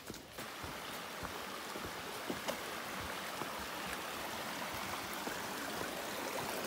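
Stream water rushing steadily, cutting in suddenly just after the start, with a few faint knocks.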